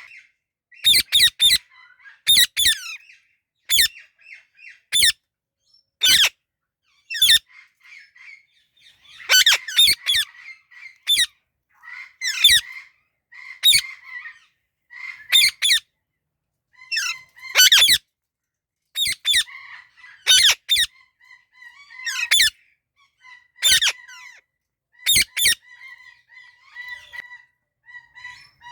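Parakeets squawking: loud, harsh, short screeches repeated every second or two, often in quick pairs or threes, over a faint steady chirping in the background.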